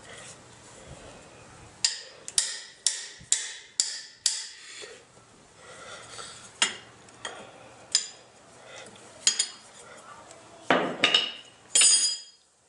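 Metal hand tools striking and clinking: a run of about six sharp metallic taps, roughly half a second apart, a couple of seconds in, then scattered single knocks, and a clatter with a ringing note near the end.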